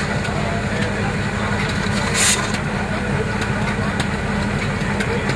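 Steam road roller running steadily with a low drone, with one short, sharp hiss about two seconds in.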